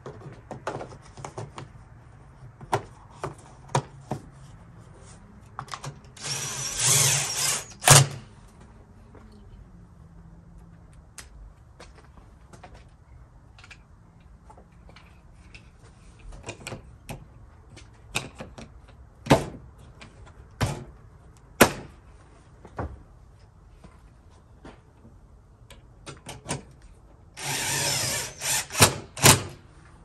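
A power driver runs in two short bursts, about six seconds in and again near the end, as the replacement liftgate latch actuator is fastened in. Each burst is followed by sharp clicks, and scattered clicks and knocks of the latch and fasteners being handled fall between them.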